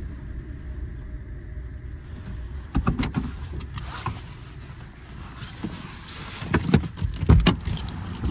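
A car's low steady rumble, with sharp knocks and clunks about three seconds in and a louder cluster of them near the end.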